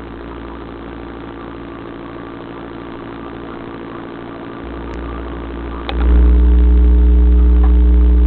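Steady mechanical hum with a low drone, jumping much louder after a click about six seconds in.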